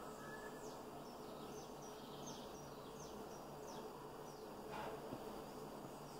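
Faint background ambience: a steady low hum with many quick, high, falling chirps, several a second.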